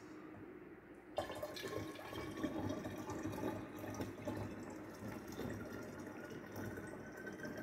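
Hot liquid agar medium poured from a cup through a funnel into a glass wine bottle, a steady splashing, gurgling stream that starts about a second in.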